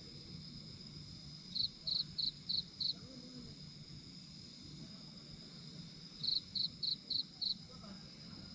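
Crickets chirping: a cricket calls in two runs of five short, high chirps, about three a second, over a steady high-pitched background whine.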